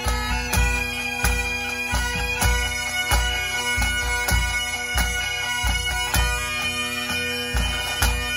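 Pipe band playing: several Great Highland bagpipes sounding a tune over their steady drones, with snare drums and a deep drum beating a regular beat underneath.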